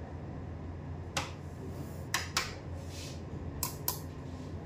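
About five short, sharp clicks or taps at uneven intervals, over a steady low hum.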